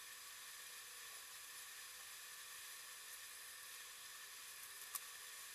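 Faint, steady hiss with no other activity, and a single short click about five seconds in.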